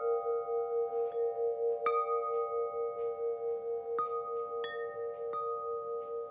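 Calm background music of struck chime tones, about four strikes that ring out, over a steady wavering drone.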